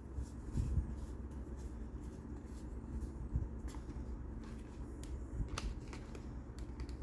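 Board-game cards being handled and sorted: light rustling with scattered small clicks and a couple of soft knocks.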